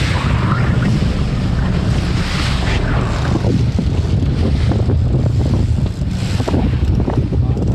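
Wind buffeting the microphone on an open fishing boat, with water washing against the hull: a steady low rumble under hiss that swells and fades.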